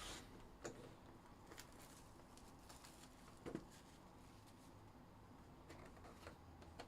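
Near silence, with a few faint light clicks and soft rustles of trading cards and packs being handled.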